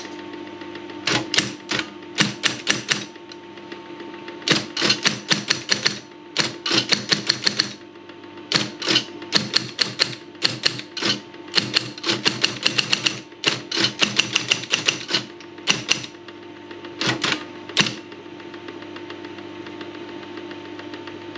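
Yartan electric typewriter (a Soviet copy of the Olympia SGE) running, its motor giving a steady, very quiet hum while the keys are typed in quick runs of strikes with short pauses between.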